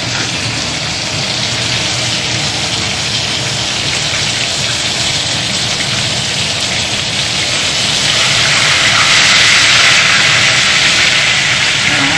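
Battered zucchini flowers frying in hot olive oil in a pan, a steady sizzle that grows louder and brighter about two-thirds of the way through.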